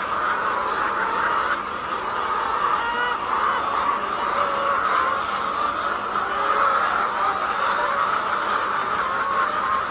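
A flock of laying hens clucking and calling all at once: a steady, dense chatter of many overlapping bird voices.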